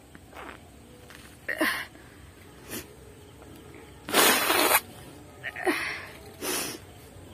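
A woman sneezing once, a loud burst of breath about four seconds in, brought on by tickling inside her nose. Shorter, fainter breathy sounds come before and after it.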